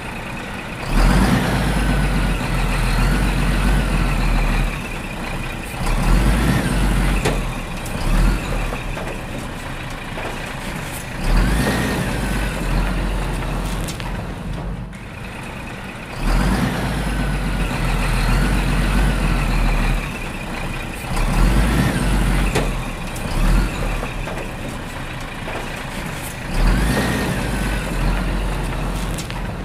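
Heavy truck engine running, with a low steady rumble and gliding higher whines; the same pattern repeats about every five seconds, like a looped truck sound effect.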